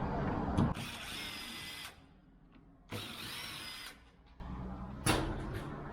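Cordless drill-driver running in two short bursts of about a second each, with a faint whine that shifts in pitch in the second. Knocks and rattles of lock hardware come at the start and about five seconds in.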